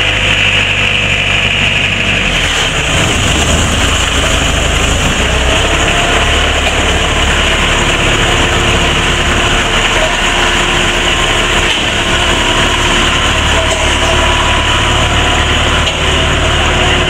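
A tour boat's engine running steadily, driving the boat along.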